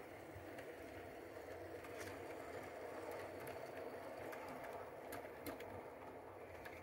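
O gauge model tank locomotive and its coaches running on the track: a steady rumble from the motor, gears and wheels on the rails that grows louder about two seconds in, with a few light clicks.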